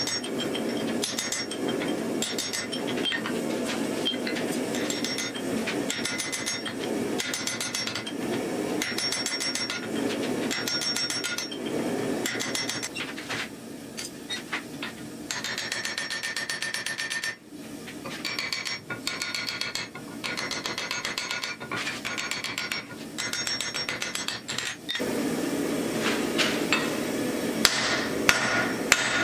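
A blacksmith's hammer strikes hot steel on an anvil in a long series of blows, the anvil ringing after each, with a short break about two-thirds of the way through.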